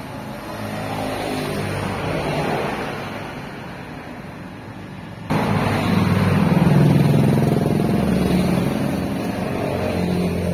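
Motor vehicle engines passing: one swells and fades, then a louder engine hum comes in suddenly about halfway and holds before easing near the end.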